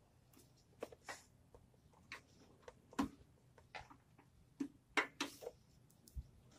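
Scattered light clicks and knocks of hands and tools working on a truck's air-suspension height control (leveling) valve and its air-hose fittings, with two sharper knocks about three and five seconds in.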